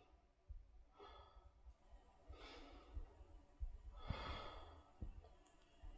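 A woman breathing slowly and audibly, faint, with three long breaths while holding a yoga pose. Under them are a few faint low bumps.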